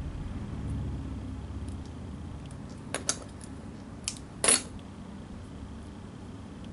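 Small hand scissors snipping the end of a waxed linen sewing thread: a few light clicks, then one louder, sharper snip about two-thirds of the way through. A low steady hum runs underneath.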